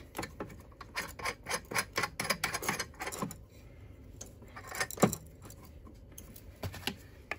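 Small metal clicks and rattles from the knife holder jig and the adjustment nut on the wetstone grinder's support bar, handled and turned for a fine angle adjustment with the stone not running. There is a quick run of clicks over the first three seconds, then a few single knocks.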